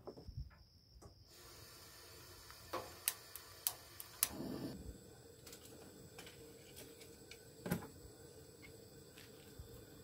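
Faint steady hiss with scattered sharp clicks and knocks from things being handled at a van's open rear doors: a quick run of clicks about three to four seconds in, then one louder knock near eight seconds.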